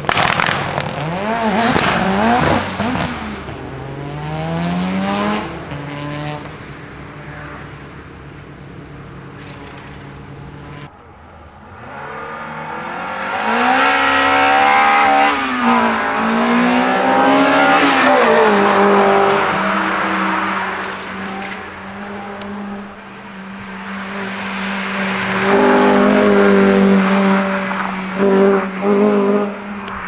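Race-prepared sprint cars' engines at full throttle, the pitch climbing through several gear changes. Near the middle an engine revs hard up and down, then holds a steady high-rev note, with a few short throttle blips near the end.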